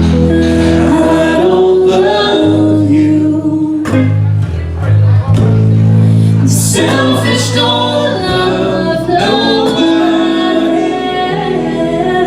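Live music: singing over guitar, with sustained low notes under shifting chords.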